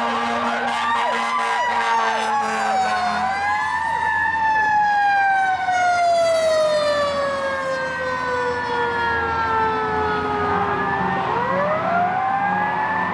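Fire engine siren wailing: quick sweeps up and down at first, then a slow rise and fall with one long fall of several seconds, winding back up near the end.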